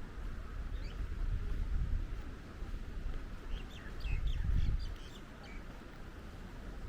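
Small birds chirping, once about a second in and then in a quick run of short chirps around the middle, over a low rumble of wind on the microphone.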